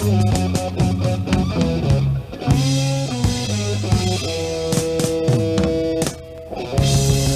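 Rock band playing an instrumental passage: electric guitar lines over bass guitar and drum kit, with two brief breaks where the playing drops back, about two seconds in and near the end.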